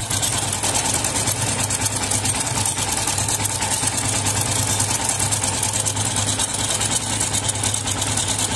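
Yamaha FZS v3's single-cylinder engine idling with the head cover off, with a fast, steady metallic ticking rattle from the timing (cam) chain. The chain has gone slack, and the noise is cam chain noise, not throttle noise.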